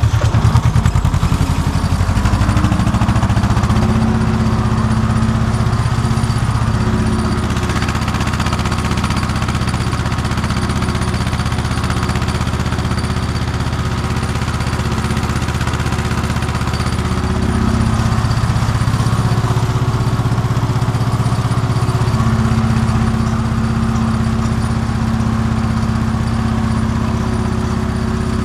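Tractor engine pulling a ridger through a field, heard from the driver's seat. It picks up speed over the first couple of seconds, then runs steadily under load.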